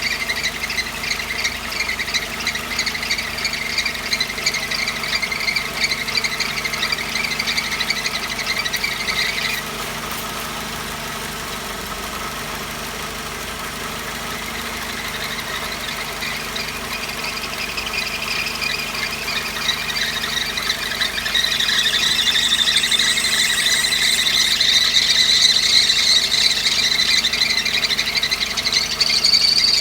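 Accessory drive belt on a Mercedes-Benz 190E 2.3's four-cylinder engine squealing in a rapid chirping squeak over the idling engine. The squeal cuts out abruptly about a third of the way in, then creeps back and is louder near the end. The bearings of the pumps, alternator and AC compressor have checked out fine, so the belt or its tension is taken to be the cause.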